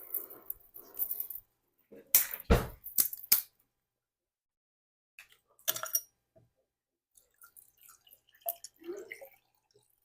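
Close-miked mukbang eating sounds: short bursts of clicks and knocks from eating and from utensils on a plate, in separate spells with quiet between. The loudest cluster, with a low thump, comes about two to three seconds in.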